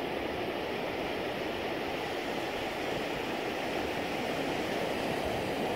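Steady rushing wash of ocean surf on a sandy beach, an even noise with no distinct breaks or impacts.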